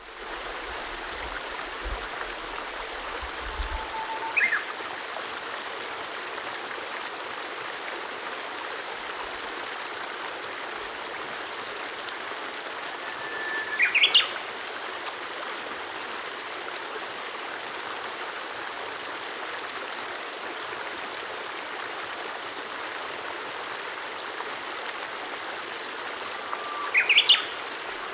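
Steady rush of a flowing stream. A bird calls three times over it, each call a held note that breaks into a quick run of higher notes.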